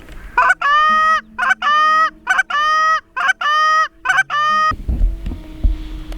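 A run of about six loud, evenly spaced goose honks, each a short steady note with a sharp break at its start, stopping about three-quarters of the way through. A low rumble with a few knocks follows.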